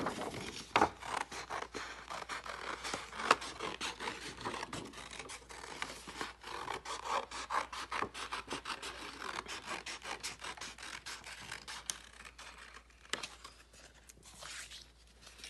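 Scissors cutting through construction paper: a quick run of snips with the paper rustling, thinning to a few scattered snips in the last few seconds.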